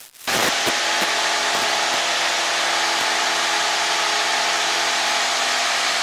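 Steady drone of a Cessna light aircraft's piston engine and propeller heard inside the cockpit, cutting in abruptly about a quarter second in and holding level.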